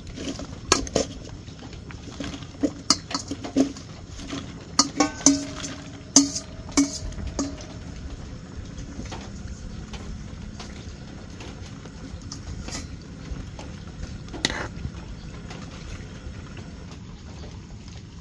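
Steel ladle clinking against a steel cooking pot over and over for the first seven seconds as water lily stems are pressed into simmering soup, the pot ringing briefly after the strikes. One more clink near the end; under it the soup simmers with a steady hiss.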